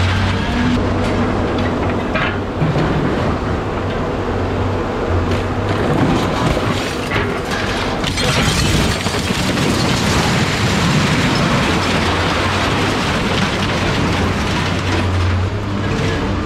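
A steady engine-like hum runs under continuous rattling, clanking and knocking of scrap metal.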